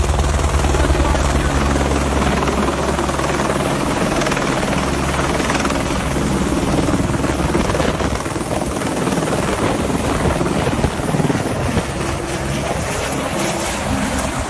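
Helicopter hovering close overhead while slinging a concrete bucket on a long line: steady rotor beat and engine noise. The low beat is strongest in the first few seconds, then gives way to a rougher, rushing noise as the helicopter banks away.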